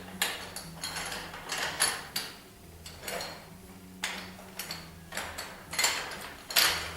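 A folding paintless dent repair stand being folded up: its parts clank and rattle in a string of separate knocks, about seven over several seconds.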